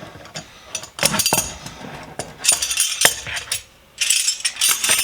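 Old steel hand tools clinking and rattling against each other as a bundle is handled and cut loose from its zip tie, in three short bouts of clatter.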